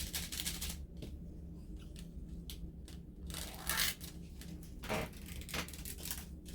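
Scissors cutting and plastic crinkling in short noisy snips and swishes, the longest about halfway through, over a steady low hum.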